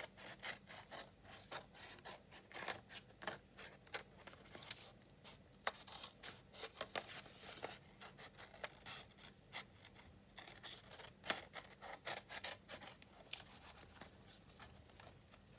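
Westcott scissors snipping through thin old book paper in many short, quick cuts in irregular runs, trimming around the edge of a card template with the blades butting against the card.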